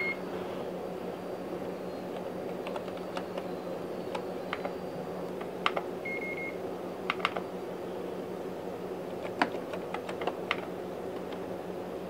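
Computer keyboard keys clicking in short, irregular runs as a console login and command are typed, with two short beeps, one at the very start and one about six seconds in, over a steady low hum.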